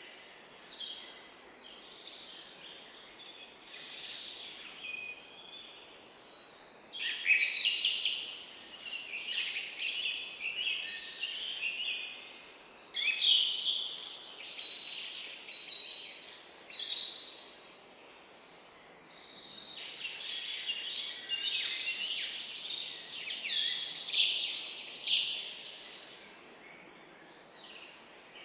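Several songbirds chirping and singing at once, overlapping high chirps and trills, with busier bursts of song about a quarter of the way in and again about three quarters of the way through, over a faint steady background hiss.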